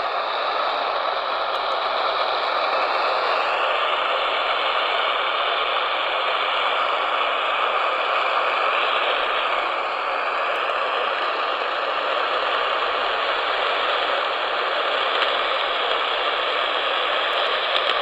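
AM radio receiver tuned to a weak station on 1620 kHz: steady static hiss that buries the emergency alert broadcast, which is barely audible beneath it. A faint whistle glides in pitch during the first few seconds.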